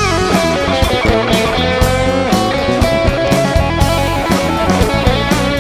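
Instrumental break of a rock song: electric guitar playing over a drum kit, with no vocals.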